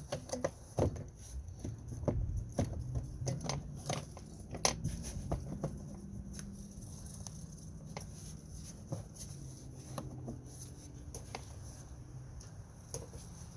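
Plastic air filter housing cover being worked into place by hand, its rear tabs hooked by feel: scattered clicks, knocks and rubbing of plastic, most frequent in the first few seconds, over a low steady hum.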